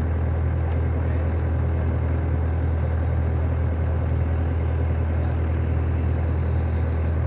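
Heavy diesel engine idling steadily: a low, even drone that does not change.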